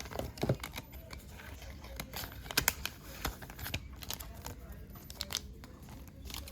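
Foil trading-card pack wrapper being torn open and crinkled, with scattered sharp crackles and clicks.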